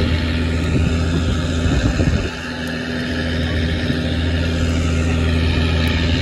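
Fishing trawler's engine running with a steady low drone, which dips briefly about two seconds in.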